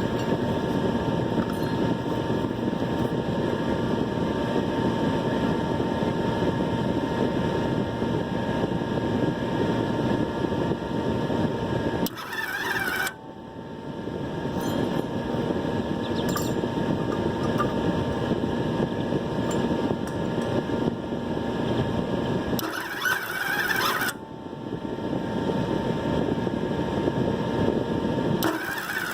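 Harbor Freight wire-feed welder's arc crackling and sizzling steadily as weld beads are laid. The arc stops twice for about a second between runs, leaving only a faint higher whine.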